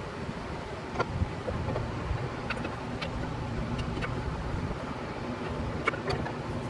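Steady low rumble of a vehicle running, with about half a dozen sharp clicks and taps scattered through it.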